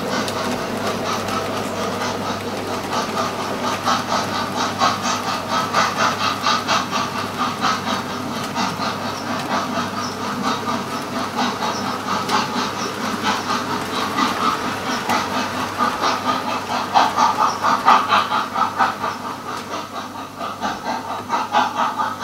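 HO-scale model train with a Jouef steam locomotive and its coaches rolling along the track. The wheels run with a steady rumble and a quick rhythmic clicking over the rail joints.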